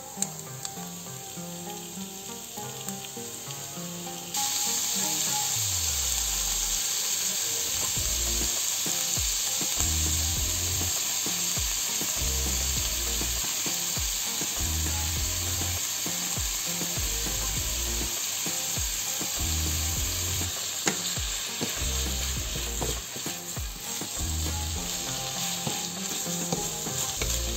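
Minced beef and onion sizzling in hot oil in a frying pan. The sizzle jumps louder about four seconds in as the mince goes in, and a wooden spatula clicks and scrapes as it stirs.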